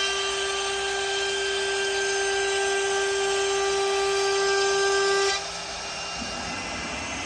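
CNC router's air-cooled spindle running at 24,000 rpm, with a 1/4-inch upcut spiral bit cutting a slot through plywood at 100 inches per minute: a steady high whine over the chip noise. It cuts off suddenly about five seconds in, leaving a quieter hiss.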